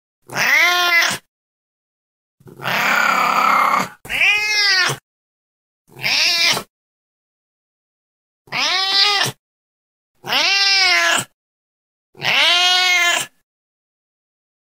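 Domestic cat meowing seven times, each meow rising and then falling in pitch, with dead silence between the calls. The second meow, about two and a half seconds in, is longer and raspy.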